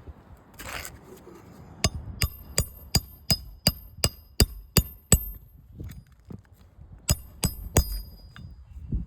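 Hammer driving roofing nails into a shingle: a quick run of about ten sharp, ringing strikes at roughly three a second, a pause, then three more. A short scrape comes just before the first strike.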